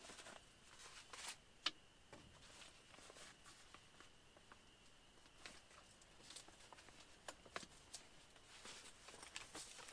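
Near silence with faint scattered clicks and rustles of camp gear being handled at a camp cot; the loudest is a sharp click about one and a half seconds in. A faint steady high tone sits underneath.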